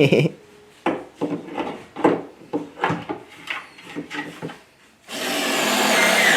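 Hard plastic parts of a toy ride-on carriage scraping and knocking against each other in a run of short strokes, about two or three a second, as the horse piece is fitted on. About five seconds in, a louder steady rushing noise starts.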